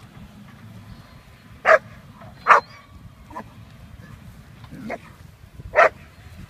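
German Shepherd puppy barking in drive at a decoy: three loud, sharp barks, about a second and a half in, a second later, and near the end, with a couple of fainter ones between.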